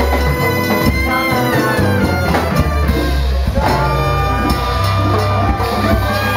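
Live salsa band playing: a lead vocal at the microphone over congas, drum kit and a guitar or bass, with held high melodic lines.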